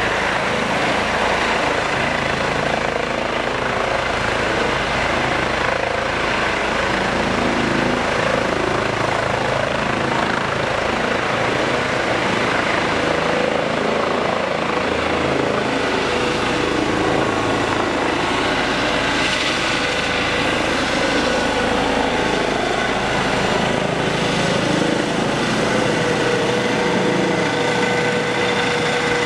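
Eurocopter EC135 air-rescue helicopter lifting off and climbing away overhead: its twin turbines and rotors run steadily and loudly, with a steady high whine over the rotor noise.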